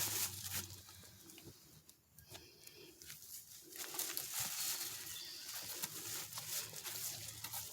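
Footsteps shuffling through dry leaves and brush, irregular, quieter for a moment and busier from about four seconds in.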